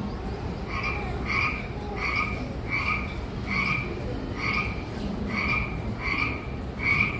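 A frog croaking: the same short call repeats evenly, about once every 0.8 seconds.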